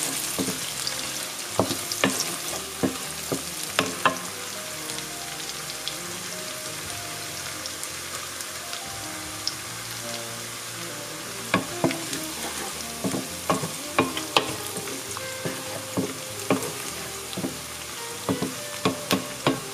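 Oil sizzling steadily in a wok as vegan shrimp, chopped shallot and preserved radish fry. A wooden spoon stirs and knocks against the wok in clusters of taps, in the first few seconds and again from about eleven seconds on.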